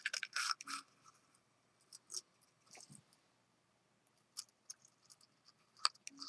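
Sporadic small clicks and crinkles of plastic packaging and small tool accessories being handled.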